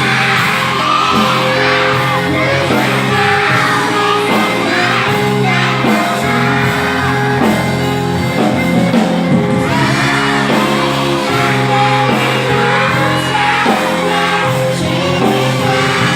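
Music: singing over steady held instrumental chords, with occasional shouts.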